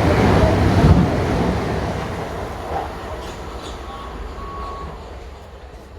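Train running in at the platform, its rumble loud at first and then fading away steadily. Two brief faint squeals come about four seconds in.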